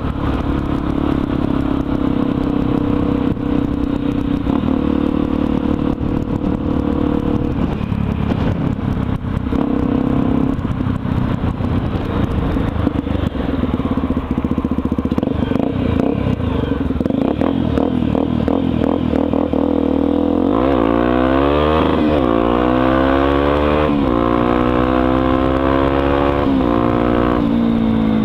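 Honda XR 250 Tornado's single-cylinder four-stroke engine running on the move, its pitch steady at first. About two-thirds through it accelerates, the pitch climbing, dropping at a gear change and climbing again several times.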